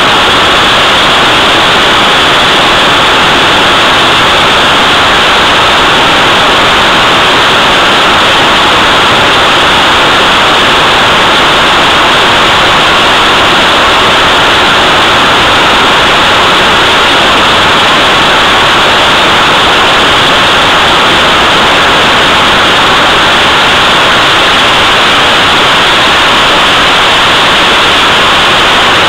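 Rocket motor firing on a thrust stand: a loud, steady rushing hiss that holds unbroken throughout.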